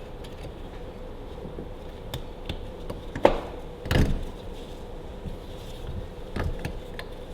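Scattered metal clicks and knocks of a circlip being worked back into its groove on a tractor PTO shaft housing with circlip pliers, with a sharp click a little over three seconds in and a duller knock just after it.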